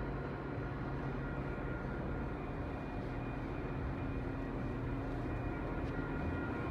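Metra commuter train's diesel locomotive running steadily with rail noise as the train departs the station.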